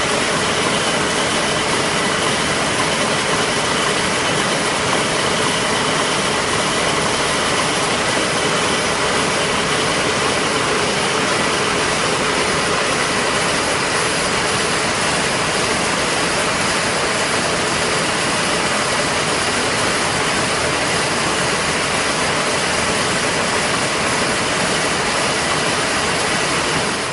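ZF-323 courier-envelope making machine running steadily: a loud, even mechanical noise with faint steady whining tones, unchanging throughout.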